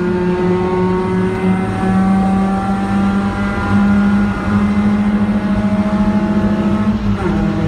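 Car engine heard from inside the cabin while being driven on a race track: a steady droning note whose pitch sags slowly, with a brief shift in pitch near the end.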